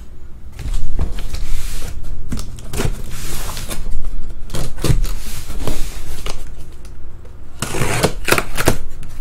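Cardboard shipping case being handled and shifted about on a tabletop: an irregular run of knocks, scrapes and rustles of cardboard, starting about a second in.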